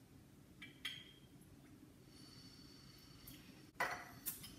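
A few faint clicks and clinks as a small bottle of simple syrup is uncapped and poured into a metal jigger, with a sharper clink about four seconds in as the bottle or jigger is set down on the counter.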